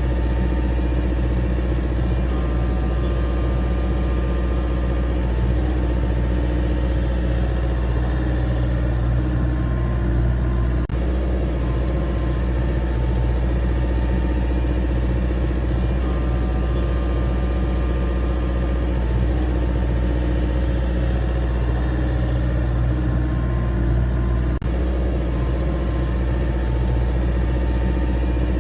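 A vehicle engine idling, a constant low drone that holds the same pitch throughout, broken by two very brief dropouts, about eleven seconds in and again near the end.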